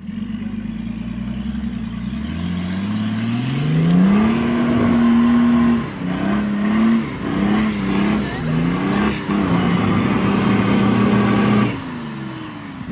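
Nissan Patrol's swapped-in BMW M57 3.0 diesel engine revving hard under load. Its pitch climbs for about two seconds, holds high, rises and falls several times, holds again, then drops away near the end.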